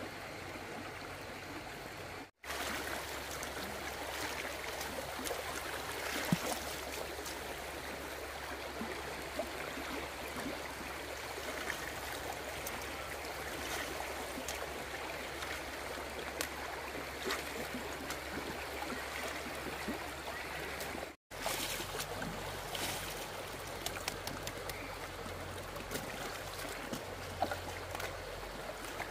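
Flowing water rushing steadily, like a small stream, with scattered light clicks and splashes; the sound drops out briefly twice.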